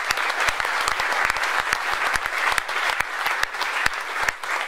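Audience applauding: a steady, dense clapping of many hands.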